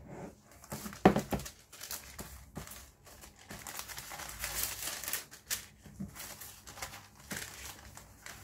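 Paper packaging being handled: a cardboard gift-box lid knocks about a second in, then white tissue paper rustles and crinkles as it is unfolded, in irregular bursts.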